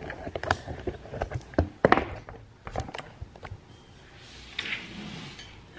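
Knocks and thumps as a freshly assembled item is handled and flipped over, loudest as two sharp knocks a little under two seconds in. After that it goes quieter.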